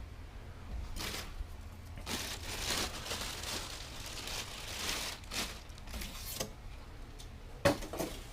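Packing material being handled: irregular rustling and crinkling, with a couple of short knocks near the end.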